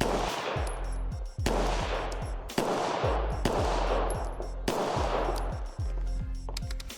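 Five rifle shots about a second apart, each followed by a long fading echo.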